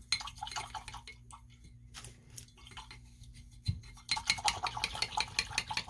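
Light clicks and taps of small hard objects being handled at a hobby workbench during painting, turning into a dense run of rapid clicking about four seconds in, over a faint steady hum.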